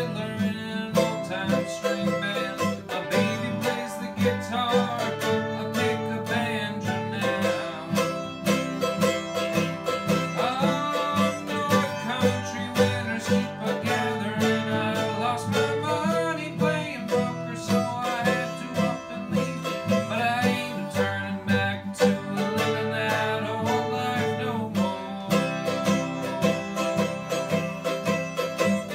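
Acoustic guitar strumming chords and a mandolin picking a melody together in an upbeat country-bluegrass song.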